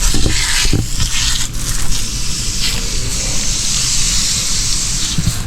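Pressure washer spraying water onto a vent-hood screen: a steady hiss of spray that swells and eases over a steady low motor hum.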